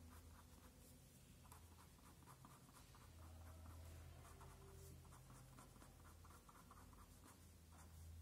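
Faint scratching of an ink pen on paper: quick short hatching strokes, several a second, in runs while shading a drawing.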